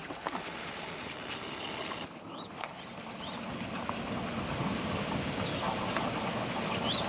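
Pair of ALCo diesel locomotives hauling a train round the curves: a low engine rumble that grows steadily louder as they approach.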